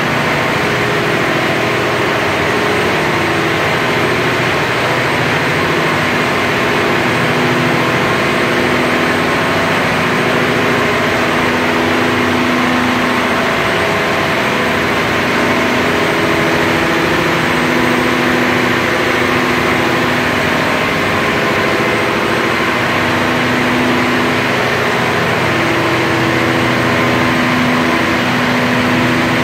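Mitsubishi S12R-MPTA V12 turbocharged marine diesel engine running steadily at about 1650 rpm on a test run after a complete overhaul. A loud, even drone with a slow, regular swell every few seconds.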